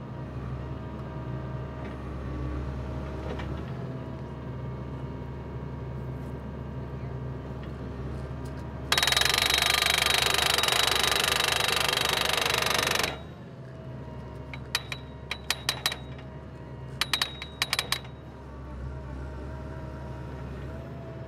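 Geoprobe 8040DT drill rig's engine running steadily; about nine seconds in, its hammer pounds continuously and loudly for about four seconds, driving the 3.25-inch casing with a solid point into the ground. Afterwards come several quick groups of sharp, ringing metallic clanks.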